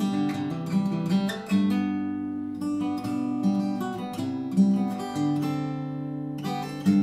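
2001 Taylor 714C acoustic guitar, a cedar-top, rosewood-bodied grand auditorium, played fingerstyle with a capo: picked melody notes ringing over a sustained bass line.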